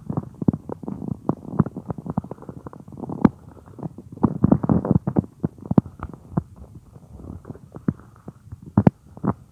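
A woman's stomach growling and gurgling, a run of many short irregular pops and gurgles with a longer, denser stretch of rumbling about four to five seconds in.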